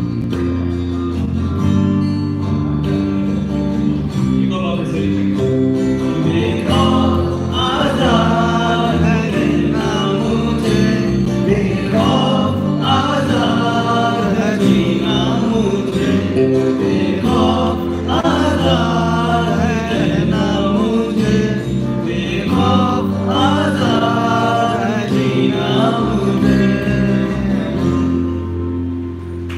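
Live song on bass guitar and acoustic guitar, with a man's voice singing into a microphone from about six seconds in.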